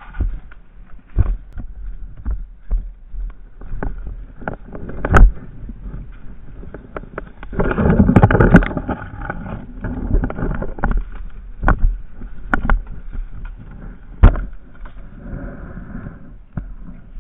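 Footsteps and rustling through dry leaves and brush close up, with scattered sharp snaps and knocks. A louder stretch of rustling comes about eight seconds in.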